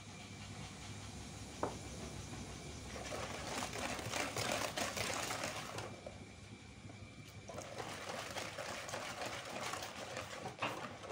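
Wire balloon whisk beating milk into a thin egg, sugar and oil batter in a plastic bowl: a rapid, steady rattle of whisk strokes, easing off briefly about six seconds in before picking up again.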